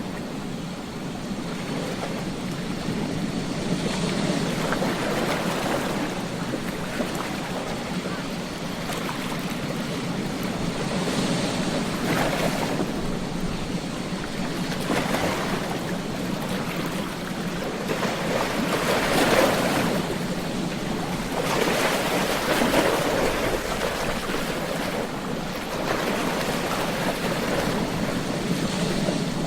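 Ocean surf breaking on a beach: a continuous wash of waves that swells and eases every few seconds, loudest a little past the middle.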